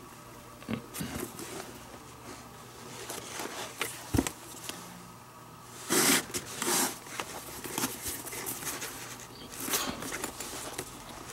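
Leather lace being pulled through the lace holes of a leather catcher's mitt, with rustling and scraping as the mitt is handled and turned over. A sharp knock comes about four seconds in, and the loudest rustling about six seconds in.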